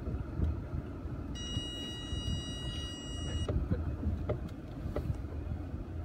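Steady low rumble of a Mercedes-Benz GLE 250 SUV rolling slowly down a dirt slope, heard from inside the cabin, with a few light knocks from the rough ground. About a second in, a steady high-pitched tone sounds for about two seconds and cuts off.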